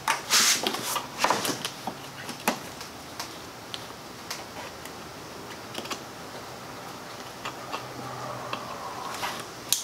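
Irregular light clicks and rustling of a plastic wiring harness and its connector being handled and fed into place by gloved hands, with a sharper click near the end as the connector is pushed onto the flex-fuel sensor.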